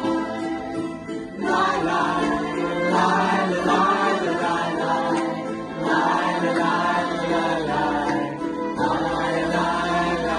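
Live folk music from a ukulele orchestra: many ukuleles and guitars strumming, a fiddle playing over them, and a group of voices singing together. The music gets louder about one and a half seconds in.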